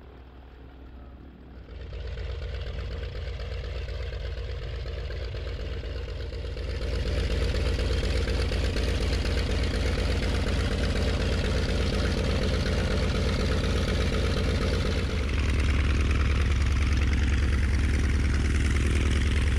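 Ultralight trike engine running on the ground, its note steady but getting louder in steps about 2, 7 and 15 seconds in.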